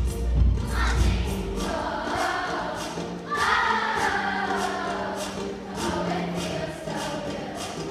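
Children's choir of fifth graders singing an upbeat song in unison over accompaniment with a steady beat.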